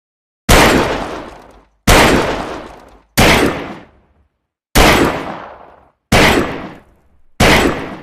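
Saturday night special revolver firing six shots, one about every second and a half, each dying away over about a second.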